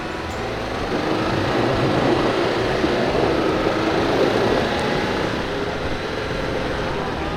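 Off-road vehicle's engine running hard under load, swelling about a second in and easing off after about five seconds.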